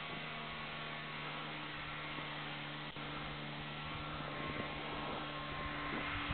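Distant Buran snowmobile engine running at a steady pitch, a constant hum, with a brief click about halfway through.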